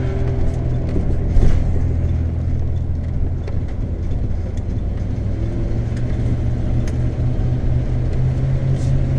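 Cab noise of a 1991 Tioga Class C motorhome under way: a steady drone of engine and road noise, strongest in the low end.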